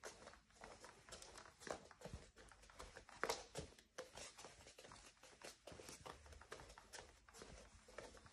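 Bare feet walking across a wooden floor, the floor giving faint creaks and clicks under the steps; the loudest comes about three seconds in.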